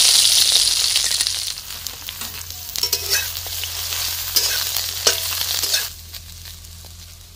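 Eggplant pieces sizzling in hot mustard oil in a metal kadhai. The hiss is loudest at first and dies down over the first couple of seconds. A steel spatula scrapes and clinks against the pan a few times as the pieces are stirred.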